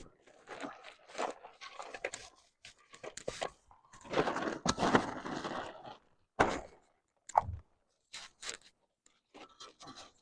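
Irregular crunches, scrapes and knocks of someone working by hand, with footsteps, and a longer rustling stretch about four to six seconds in.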